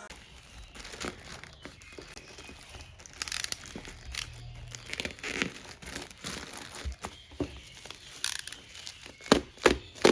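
Plastic packaging crinkling and tearing as it is handled, with several sharp clicks or taps near the end.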